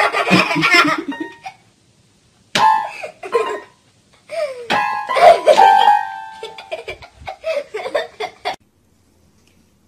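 Toy electronic keyboard sounding jumbled clusters of notes as a dog paws and noses its keys, in three bursts; the last is the longest and stops about eight and a half seconds in.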